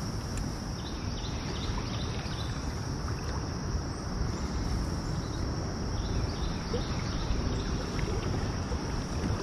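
Steady low rumble of wind on the microphone, with a few faint high chirps or ticks in the first few seconds.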